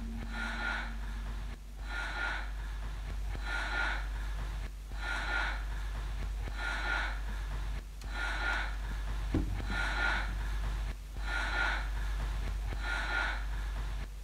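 Quiet passage from a live jazz band: a held low note fades out in the first second and a half, over a regular rhythmic swish that repeats about every second and a half, with a steady low hum.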